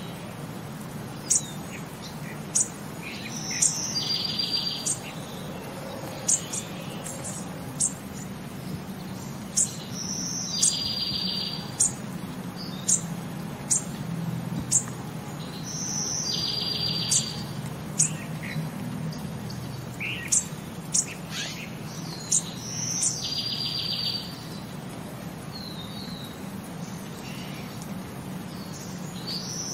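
Nature ambience of short, sharp, high bird chirps every second or two, with a pulsing trill about a second long repeating roughly every six seconds, over a low steady hum.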